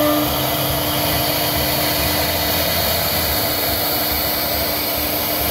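CNC router spindle running with a steady whir while it carves a relief pattern into a wooden panel.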